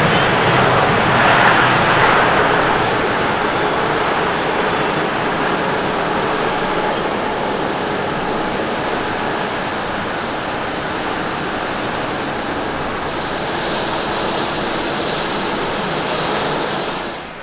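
Airbus A350-900 jet with Rolls-Royce Trent XWB engines, heard as a loud engine roar while it rolls out along the runway after landing, easing off gradually as it slows. A thin high whine joins in over the last few seconds, and the sound cuts off suddenly near the end.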